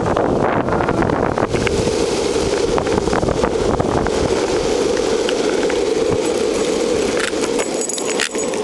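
Longboard wheels rolling steadily over pavement at speed: a continuous rolling noise with scattered small clicks and rattles.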